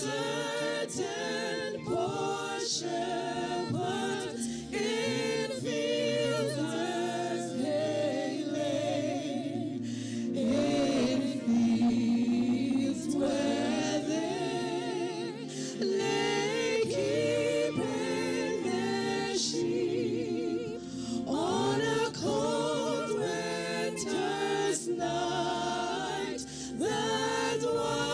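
A worship team singing a slow worship song, a woman's lead voice with wide vibrato over a small group of backing singers.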